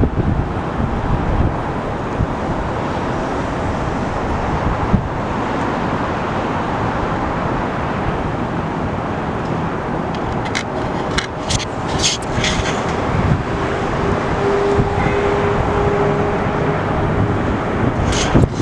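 Steady noise of jet aircraft at an airport, with a faint engine tone in the middle, mixed with wind buffeting the microphone. A few sharp clicks come in the middle and again near the end.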